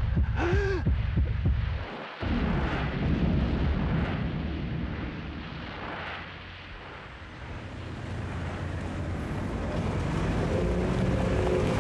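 A dense, low rumbling roar from the film's soundtrack. It opens with a few wavering, rising-and-falling tones, cuts out briefly about two seconds in, eases in the middle and swells again, and faint steady tones come in near the end.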